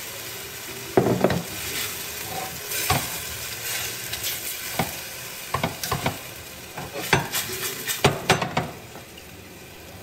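Chicken pieces sizzling in a little sauce in a stainless steel pot, stirred with a spatula that scrapes and knocks irregularly against the pot. The stirring eases off near the end, leaving the sizzle.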